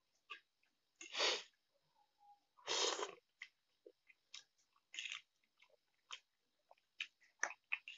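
A man eating instant noodles: two loud slurps about one and three seconds in, then chewing with many short wet clicks and smacks.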